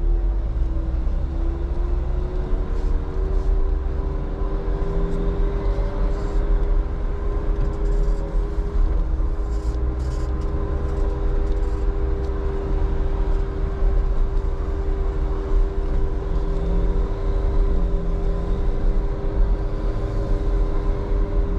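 Jeep engine and drivetrain running steadily at low trail speed, a constant hum over a heavy low rumble, the pitch dipping slightly about a second in and then holding steady.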